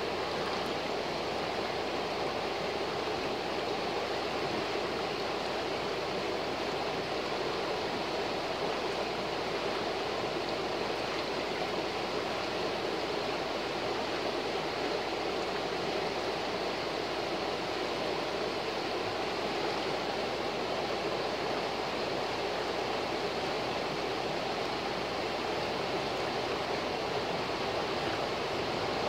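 A fast, shallow river rushing over a rocky riffle: a steady, even rush of water with no breaks.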